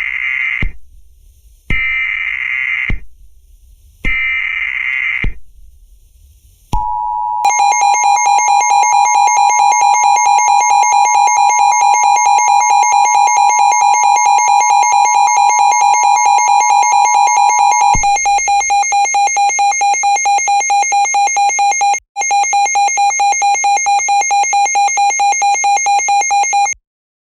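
Simulated Emergency Alert System weather-radio alert: harsh, buzzing digital data bursts of the SAME header, about a second each and repeated, followed by a long, loud, steady alert tone. The higher of its two pitches drops out about two-thirds of the way through, it breaks off briefly once, and it stops abruptly near the end.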